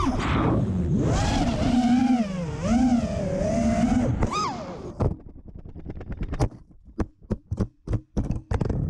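FPV quadcopter's motors and propellers whining, heard from the onboard camera, the pitch rising and falling with the throttle. About five seconds in the whine fades and a quick, irregular series of sharp knocks follows as the quad crashes and tumbles across concrete.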